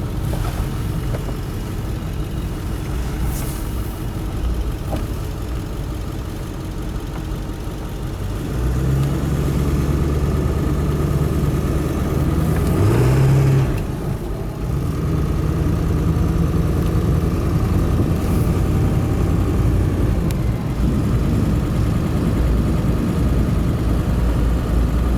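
Ford 7.3 Powerstroke turbo-diesel with a 4-inch straight pipe, heard from inside the F250's cab while driving, over steady road and tyre noise. The engine picks up about nine seconds in, rises in pitch, and drops back about fourteen seconds in as the automatic shifts, then holds steady.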